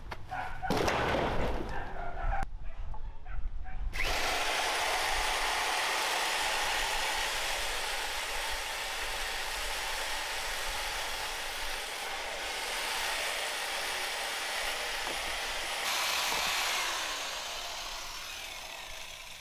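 Small electric chainsaw starting about four seconds in and running steadily as it cuts through a log. Near the end its sound changes and it winds down with a falling whine as it stops.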